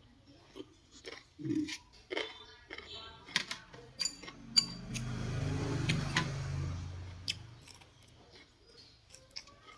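Utensils clicking and clinking against a bowl during a meal of Cambodian rice noodles, in short scattered knocks. A low rumble swells up about halfway through and fades again.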